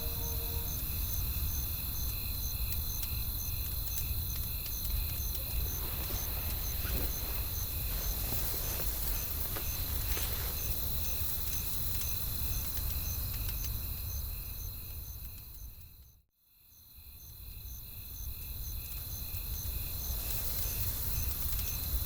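Crackling campfire over a low rumble of wind, with crickets chirping in steady pulses, about three to four a second. The whole bed fades out to silence about sixteen seconds in, then fades back in.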